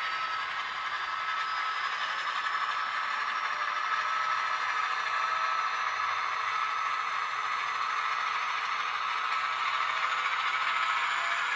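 Dapol N gauge Class 68 model locomotive's ESU LokSound V5 sound decoder playing a JMC Class 68 diesel sound file through twin small sugar-cube speakers. It gives a thin diesel engine note with almost no bass and a faint whine slowly rising in pitch, over a light rattle.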